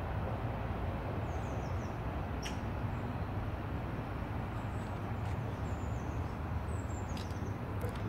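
Steady outdoor background of low rumble with a few faint high bird chirps and light clicks; no other sound stands out.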